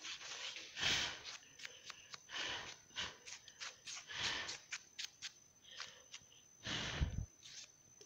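Crumpled tissue rubbed back and forth over a desktop RAM module to clean it, giving irregular rustling wipes and small clicks, the strongest about a second in and near the end.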